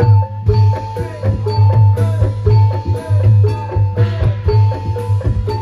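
Live campursari-style accompaniment for a reog/jaranan dance: hand drums with pitch-bending strokes and tuned mallet percussion over a steady low beat of about two pulses a second, with a held tone sustained above.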